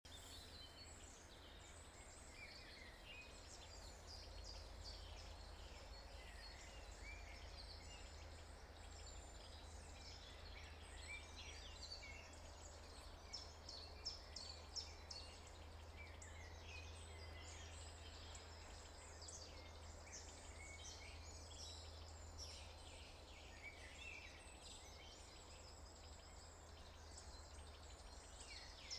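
Faint morning birdsong: many small birds chirping and trilling, with short high calls overlapping one another. A low steady rumble lies underneath.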